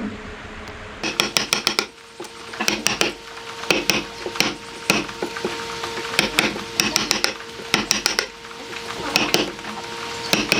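Short bursts of rapid, sharp clicking taps, several strokes at a time, coming roughly every second and a half over a faint steady hum.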